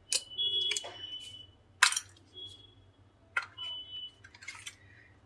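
Small plastic gadgets and cables being handled and set down on a table: a series of irregular clicks and knocks, some with short high squeaks.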